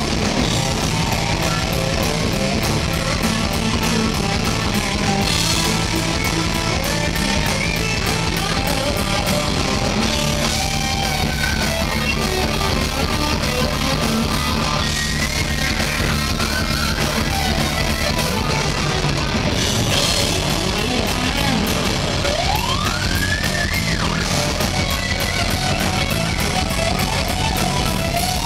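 Live instrumental rock boogie: an Ibanez JS1200 electric guitar plays lead over bass guitar and drums, heard through a concert PA from the audience. About three-quarters of the way through, a guitar note slides sharply upward in pitch.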